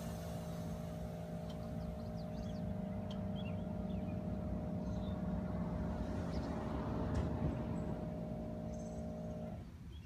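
Air-suspension onboard air compressor running with a steady hum, cutting off abruptly about nine and a half seconds in. The tail of an air hiss dies away at the start.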